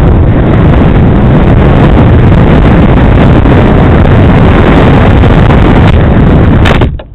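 Loud, steady wind rush and electric motor drone picked up by a camera riding on an RC plane in flight. It cuts off sharply near the end.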